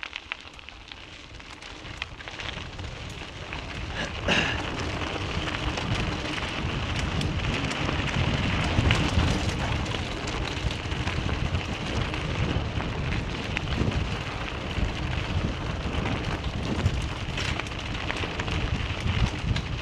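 Vehicle tyres crunching and crackling over a loose gravel road while driving, with a low rumble underneath. The sound grows louder over the first four seconds as the vehicle picks up speed, then holds steady.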